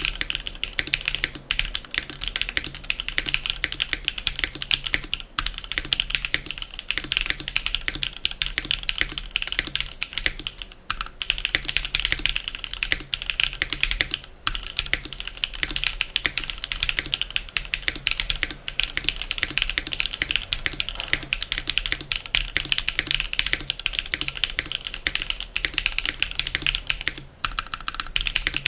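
Steady fast typing on an AKB Vero custom mechanical keyboard: Gateron Raw switches with 62 g long springs, mounted on a polycarbonate plate with its top-left and top-right screws removed, under GMK doubleshot ABS keycaps. The key clatter runs almost without a break, pausing briefly a few times.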